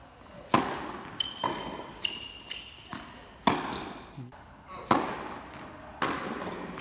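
Tennis serve and rally on an indoor hard court: a tennis ball is struck by rackets and bounces on the court, making sharp pops about every second that echo around the hall. Short high sneaker squeaks come between the shots.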